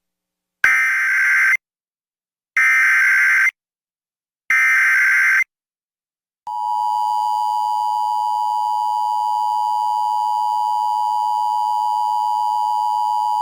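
Emergency Alert System activation: three one-second bursts of SAME digital header data, a warbling screech about a second apart, then a steady, loud two-tone attention signal that starts about six and a half seconds in and holds. The header carries a National Weather Service Severe Thunderstorm Warning.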